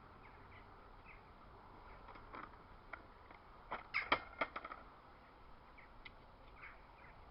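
A quick cluster of sharp knocks and scrapes about four seconds in, over a quiet outdoor background with a few faint, short chirps.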